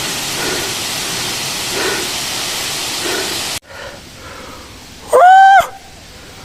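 Waterfall rushing steadily, cut off suddenly after about three and a half seconds. Near the end comes one loud, short pitched call that rises and then holds.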